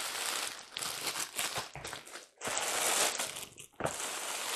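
Packaging of a model train box being handled: cardboard and paper packing rustling and crinkling in uneven bursts, with brief pauses.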